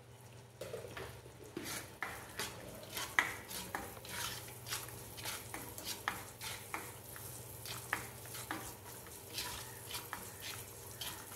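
A black plastic cooking spoon stirring and scraping cashew pieces and raisins around a nonstick pan, about two or three strokes a second, over a light sizzle of the ghee they are frying in.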